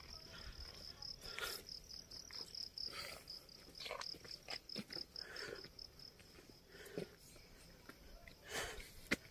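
An insect trilling in a rapid series of high, even pulses that stops about two-thirds of the way through, with faint scattered clicks and rustles.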